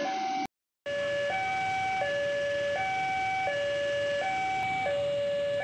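Electronic two-tone warning alarm of a railway level crossing, alternating steadily between a low and a high tone, each held for a little under a second. The sound cuts out briefly about half a second in.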